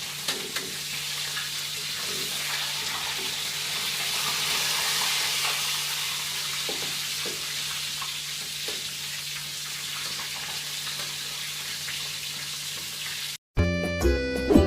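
Food frying in a pan, a steady sizzle with a few light clicks of a utensil. About 13.5 seconds in it cuts off sharply and music begins.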